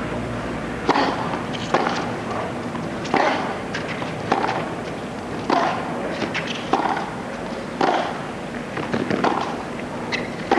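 Tennis ball being struck by rackets and bouncing on a hard court during a point, about one sharp hit a second, over a faint crowd hush.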